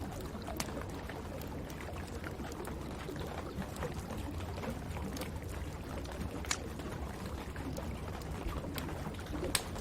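Wood fire crackling in a fireplace, with a few sharp pops, the clearest about two-thirds of the way through and just before the end, over a steady hiss of rain.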